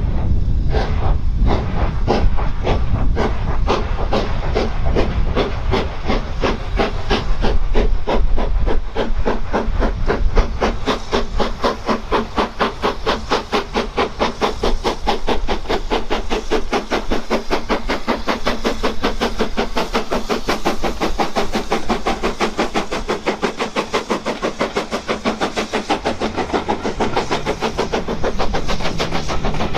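BR Standard Class 9F steam locomotive 92214 pulling away under power, its exhaust beats quickening steadily as it gathers speed, with steam hissing.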